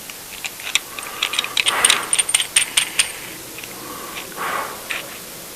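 Small metal tools being picked up and handled, giving a quick run of light clicks and rattles with a brief high ring, then a couple of softer rustles and taps.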